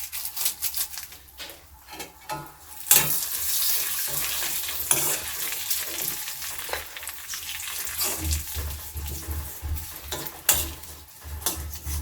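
Herb leaves, garlic and pepper frying in hot coconut and mustard oil in an iron kadai: the oil sizzles, louder from about three seconds in, while a spoon stirs and clicks against the pan.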